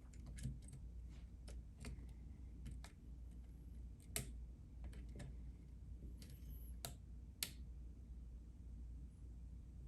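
Faint, scattered clicks and ticks of a lock pick working the pins of a pin-tumbler challenge lock under light tension, as pins set and move, with a few sharper clicks about four seconds in and again near seven seconds. A low steady hum runs underneath.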